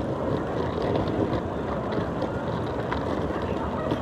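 Hard-shell suitcase wheels rolling over paving slabs, a steady rumble with faint ticks as the wheels cross the joints.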